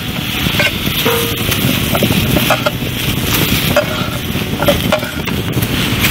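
Food sizzling on a camp barbecue, with a few short clicks of a cooking utensil.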